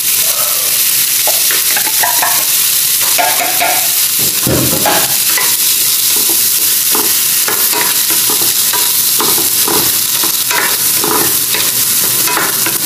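Shrimp and corn kernels sizzling in oil in a frying pan, stirred with a wooden spatula: a steady hiss with many short scraping strokes of the spatula against the pan.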